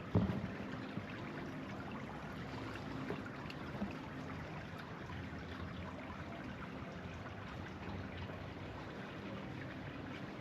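Steady wash of trickling water, with a faint low hum under it.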